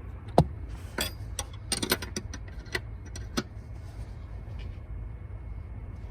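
Metal tool clicks and clinks from a socket wrench working the 15 mm bolts that hold the jump seat: one sharp clack about half a second in, then an irregular cluster of lighter clicks and rattles over the next few seconds, over a steady low rumble.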